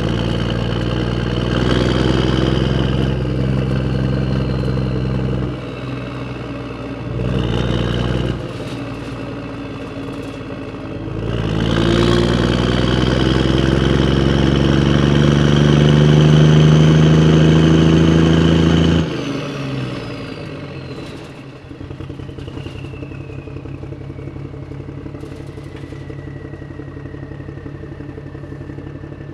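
Motor vehicle engine running and revving. About halfway through it speeds up with a steadily rising pitch, then drops off suddenly to quieter, rougher running with a thin whine falling slowly in pitch.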